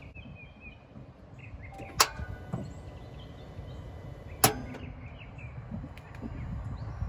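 Starter of a 2016 Dodge Challenger R/T clicking twice, about two and a half seconds apart, as it is tried, with no engine cranking: the sign of a failing starter.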